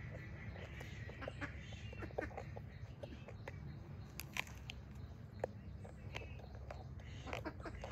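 Close-miked mouth sounds of a person biting and chewing raw vegetable and leaves: crisp, wet crunches and smacking clicks, a few of them sharper than the rest, over a steady low hum.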